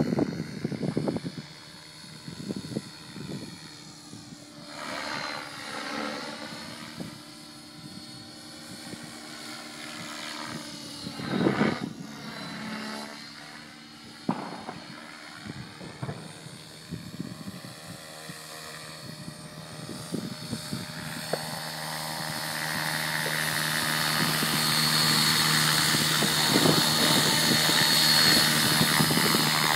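Align T-Rex 600 Pro radio-controlled model helicopter flying: a steady rotor drone whose pitch sweeps up and back down twice. It then grows louder for the last several seconds, with a high whine, as the helicopter comes in low and close.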